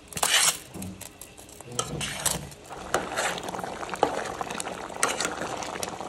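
A metal spoon stirring in a steel pot, scraping and clinking against the metal again and again over a steady hiss, as cooked spaghetti and a thick papaya-chunk sauce are mixed.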